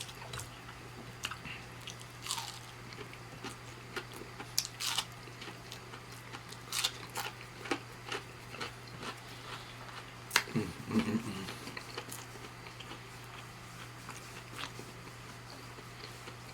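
Close-miked chewing of breaded vegetarian buffalo wings: irregular wet mouth clicks, smacks and light crunches, with a louder cluster of mouth sounds about ten seconds in, over a steady low electrical hum.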